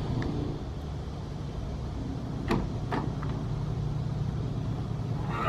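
Driver's door of a Honda Acty kei truck being unlatched and pulled open: two sharp clicks about half a second apart over a steady low hum.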